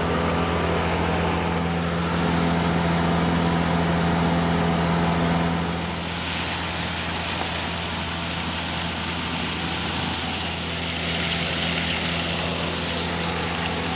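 Finn bark blower truck running steadily: its John Deere diesel engine and air blower make a continuous drone. From about six seconds in, a steady rushing hiss joins it as mulch is blown out through the hose.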